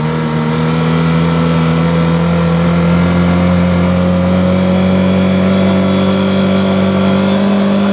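Kawasaki STX-12F jet ski's four-stroke, four-cylinder engine running steadily under throttle, its pitch creeping slowly upward as the revs climb past 4,000 rpm. The freshly rebuilt engine is being load-tested in a run tank and is pulling hard against the water.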